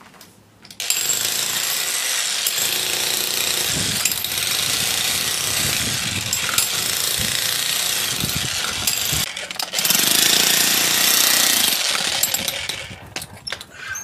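Corded electric demolition hammer (breaker) with a chisel point hammering into the hard ground and gravel at a post hole. It starts about a second in, stops briefly about nine seconds in, runs again louder, and stops near the end.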